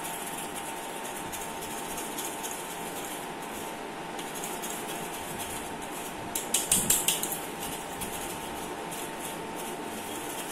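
Metal spoon scraping and tapping inside a small steel tea strainer as cocoa powder is sieved through it, with faint ticks throughout and a quick run of louder metallic taps about six and a half seconds in. A steady low hum runs underneath.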